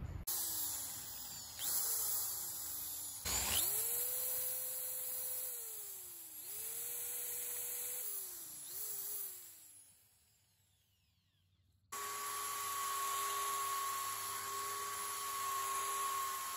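A drill spinning a wire wheel brush against a weathered redwood post, scouring out rotten wood; its motor speeds up and slows down several times as the trigger is squeezed and eased off. After a brief quiet gap about ten seconds in, a belt sander starts and runs at a steady pitch.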